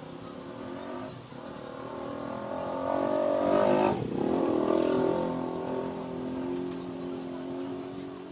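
A motor vehicle driving past. Its engine note grows louder, drops sharply in pitch as it passes about four seconds in, then fades.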